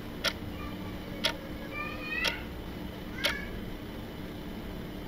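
Quiz countdown timer ticking: four sharp ticks about a second apart over a low steady hum, with a faint, short, wavering high sound between the third and fourth ticks.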